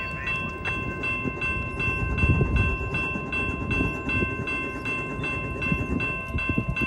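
Railroad grade-crossing bell ringing rapidly, about three strikes a second, over the low rumble of a freight train rolling past; the bell cuts off at the very end.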